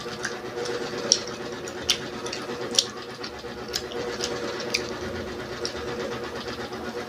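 Close-miked chewing of crispy fried food, with sharp crunches coming irregularly about once a second over a steady low hum.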